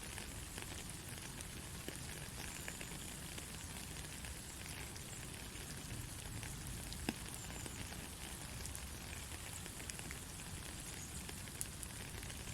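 Gentle, steady rainfall, an even patter with the odd single drop ticking out sharper, one most clearly about seven seconds in.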